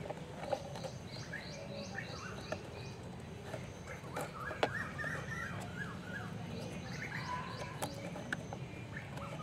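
Small birds chirping in quick runs of short repeated notes, some high and thin, over a faint steady outdoor hiss. A few light clicks come from a plastic toy wheel being pressed onto its axle.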